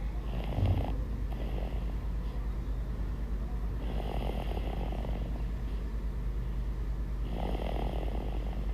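Snoring: three drawn-out rasping snores about three and a half seconds apart, over a steady low hum.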